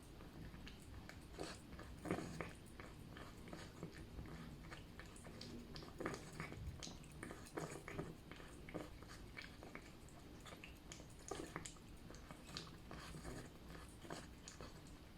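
A cat eating jelly food, chewing with irregular short clicks, a few a second.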